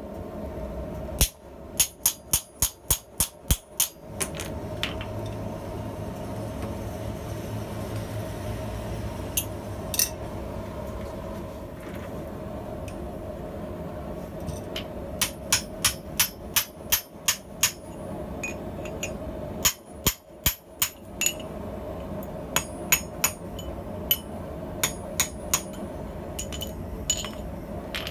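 Hand hammer striking a tapered drift driven through the finger-ring eye of a red-hot steel scissor half on an anvil, opening the ring. The blows come in several runs of sharp, ringing strikes, about three a second, over a steady low hum.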